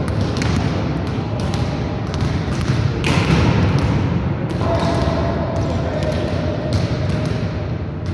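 Volleyballs being hit and bouncing on a sports-hall floor: a run of sharp slaps and thuds, echoing in the large hall.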